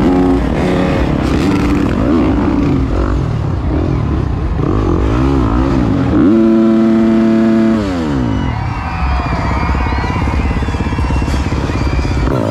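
Dirt bike engine revving up and down in short blips; a little past the middle it holds high revs steadily for about a second and a half, then the revs drop away.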